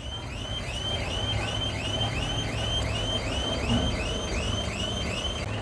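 Low steady rumble of the Tata Intra V10 BS6 pickup's diesel engine idling, with a high chirping note repeating about four times a second over it.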